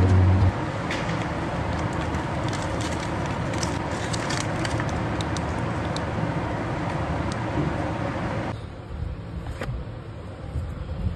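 Steady air-conditioning noise with light crinkling and clicks as a plastic lunch box is opened and food in clear plastic wrap is handled. A little over eight seconds in, it gives way to a quieter room noise.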